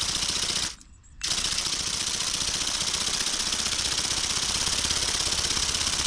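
Remote-control flapping-wing toy bird (Go Go Bird) running its motor and wing gearbox: a fast, even rattling of the flapping mechanism. It stops for about half a second about a second in, then starts again and runs steadily.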